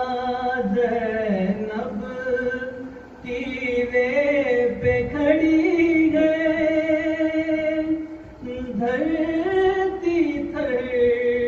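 A man chanting a soz, a slow Urdu Muharram lament sung without instruments, in long held notes that waver and slide between pitches, breaking off briefly for breath every few seconds.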